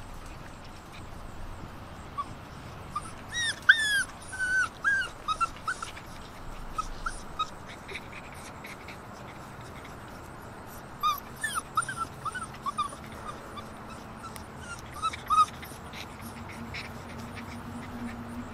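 Six-week-old Alaskan Malamute puppies whimpering and yipping in short, high, falling cries. The cries come in two main bunches, with a few lone cries between.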